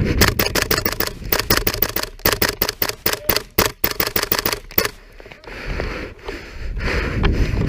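Airsoft gun firing several rapid bursts of sharp, clicking shots for about five seconds, then stopping.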